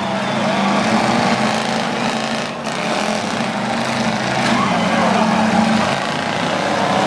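Several demolition derby cars' engines running together, revving up and down in a dense, loud mix.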